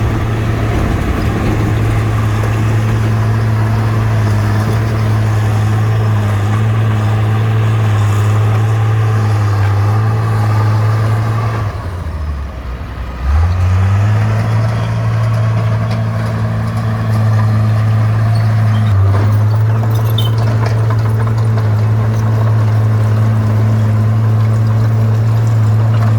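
Bulldozer's diesel engine running steadily under load, its pitch and level dropping briefly about twelve seconds in and then picking back up.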